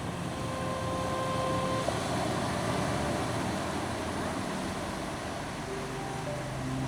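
Ocean waves washing steadily on a shore, under a soft ambient music bed of long held notes.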